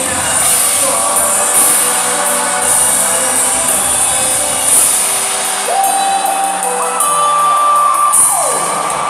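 Live pop-rock band playing with singing, heard from within the audience, with the crowd shouting and cheering. In the second half a held high note slides down in pitch near the end.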